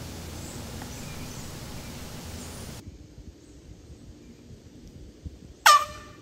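One short blast of an air horn, about half a second long, near the end, the loudest sound here. Before it, a steady hiss that cuts off about three seconds in.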